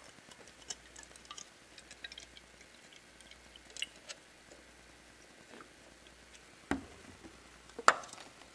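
Light plastic clicks and taps from handling a plastic gallon water jug and a plastic cup on a tabletop, with two sharper knocks near the end as the jug and cup are set down, the second the louder.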